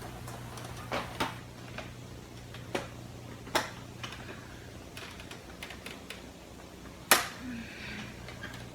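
Sharp clicks and knocks of plastic printer parts being struck and broken apart, coming irregularly, with a handful of louder knocks among lighter clicks and the loudest about seven seconds in.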